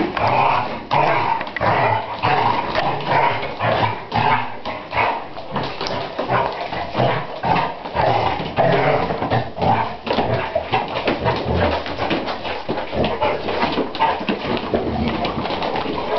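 Two basset hounds vocalising as they wrestle in play, with frequent sharp clicks and scuffles of claws and paws on the floor.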